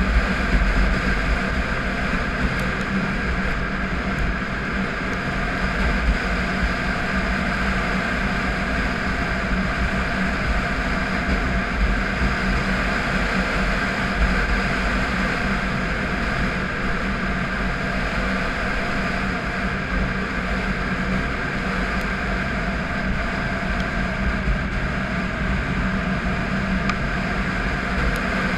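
Triumph Tiger 955i's inline three-cylinder engine running at a steady cruise, with wind buffeting the microphone as a constant low rumble.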